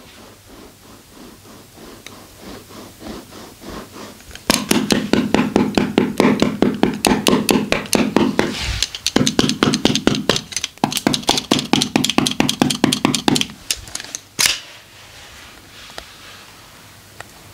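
Rapid rhythmic massage strikes on the body, about five or six a second. They start soft, then turn loud and fast for about nine seconds with a low steady hum underneath, and end with one sharp slap.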